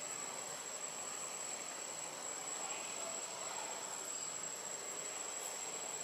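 Steady background hiss with a constant, thin high-pitched whine and no monkey calls, ending in a single sharp click.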